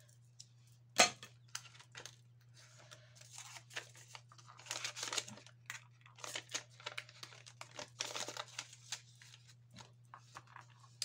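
Paper and plastic rustling and crinkling as a 10-euro banknote is handled and slid into a clear plastic pocket of a ring-binder budget planner, with a sharp click about a second in.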